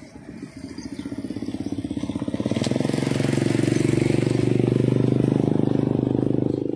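A motorcycle engine running close by, growing louder over the first few seconds and then holding a steady pitch, dropping away near the end.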